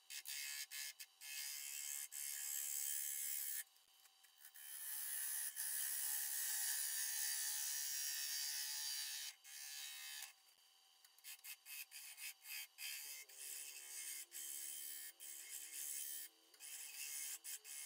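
A lathe turning tool cutting the outside of a spawling spalted ash bowl spinning on a wood lathe: a hissing scrape of steel on wood, broken by short gaps as the tool lifts off, with two longer pauses about four seconds in and again around ten seconds.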